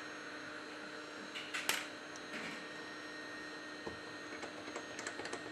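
Steady electrical hum, with a couple of sharp clicks about a second and a half in and a run of small ticks near the end as the phone and its partly lifted screen are handled in a metal screen-separator clamp.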